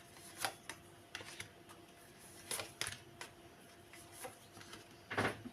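Tarot cards being handled and laid out: a few light, irregular clicks and taps, with a faint steady hum underneath.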